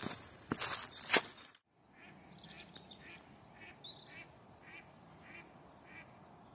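Footsteps crunching on dry leaves and twigs for about a second and a half, then the sound cuts to a faint, even series of bird calls, about two a second, with a couple of brief high chirps from a second bird.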